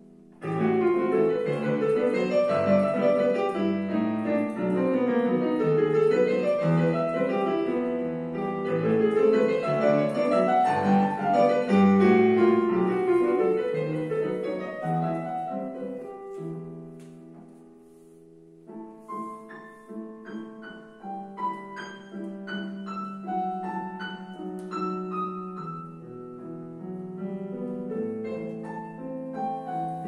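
Digital piano playing a solo piece: a loud, dense passage of full chords begins sharply about half a second in and dies away to a brief pause a little after the halfway mark, then a quieter, sparser passage of separate notes follows.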